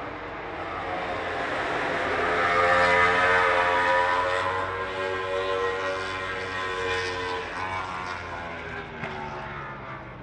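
A passing engine: a steady droning tone that swells to its loudest about three seconds in, then slowly fades away over the next several seconds, dropping slightly in pitch as it goes.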